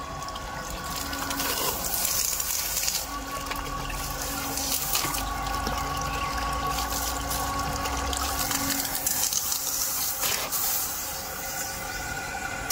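Water gushing from the PVC outlet pipe of a running small electric water pump into a basin, splashing around a hand held at the pipe's mouth, with the pump motor's steady hum underneath.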